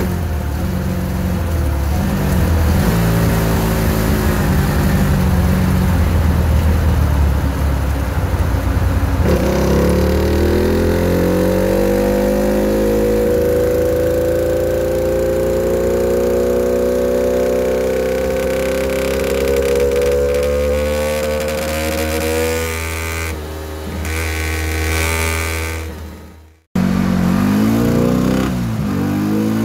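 A Yamaha Xabre's single-cylinder engine, bored up to 220 cc with a racing cam, running on a dynamometer for a power run. After about nine seconds of steady running it makes one long pull with the pitch climbing steadily for about twelve seconds, then eases off. After a sudden cut near the end, the engine revs rise and fall.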